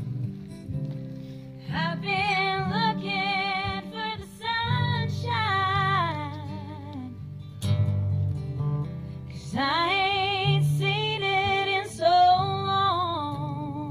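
Women singing sustained notes with vibrato, accompanied by a strummed acoustic guitar, in two phrases with a short gap of guitar alone between them. The sound cuts off abruptly at the end.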